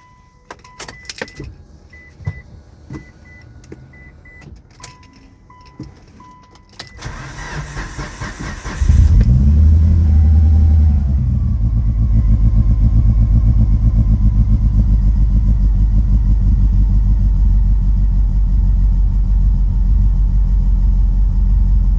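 Clicks and a few short electronic beeps from the car, then the Mitsubishi Lancer Evolution VIII's turbocharged 4G63 inline-four cranks for about two seconds and fires. It flares briefly on catching and settles into a steady idle.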